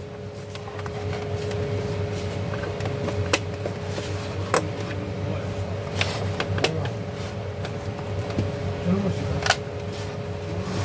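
Steady low hum with a faint whine, with a few sharp clicks scattered through it.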